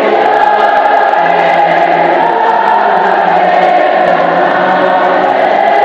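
A choir singing a slow liturgical hymn in long held notes, with several voice parts sounding together.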